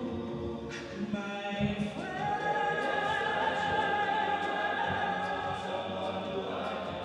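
All-male a cappella group singing quiet, sustained chords in close harmony.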